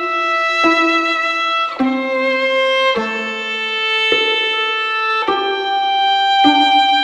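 Background music: a slow melody of held notes, each note changing about once a second.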